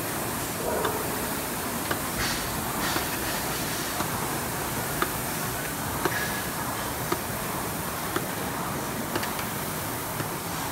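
A row of Concept2 indoor rowing machines worked at once: the steady rushing whir of their air-resistance flywheels, with a sharp click about once a second.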